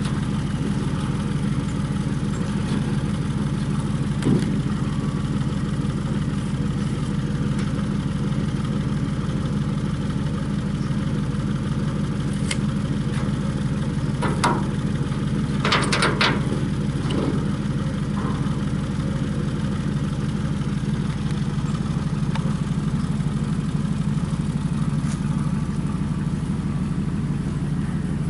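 Pickup truck engine idling steadily, with a few brief knocks about halfway through.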